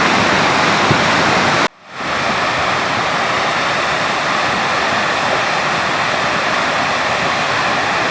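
Rushing floodwater of a river in spate: a loud, steady roar of water. About one and a half seconds in it cuts out abruptly for a moment, then comes back.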